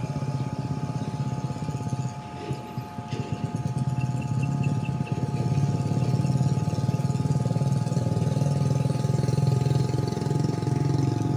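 An engine running steadily, a low hum with a few steady higher tones over it. About four seconds in there is a short run of quick, light ticks.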